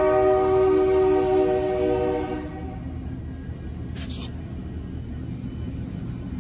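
Diesel locomotive air horn sounding a steady chord, which cuts off a little over two seconds in. Under it and after it runs the low rumble of the passing CN diesel locomotives' engines, with a brief high hiss about four seconds in.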